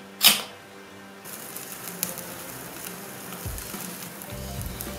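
Wood fire crackling in a small wood stove, a steady hiss with scattered small pops. A brief loud burst of noise comes just after the start.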